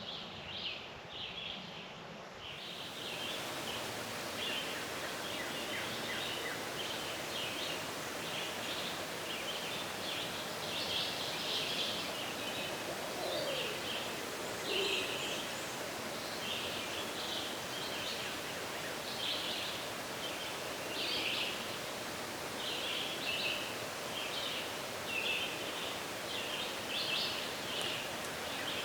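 Woodland songbirds chirping and singing over a steady outdoor background hiss.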